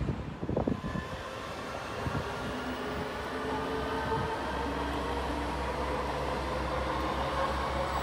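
Electric train running on Swedish mainline track: a steady low hum with several whining motor tones, slowly growing louder. Wind gusts on the microphone in the first second.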